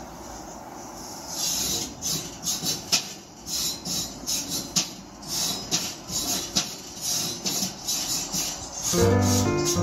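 A gas grill's grate being scraped clean in quick, irregular strokes, after a steady hiss in the first second or so. A piano comes in near the end.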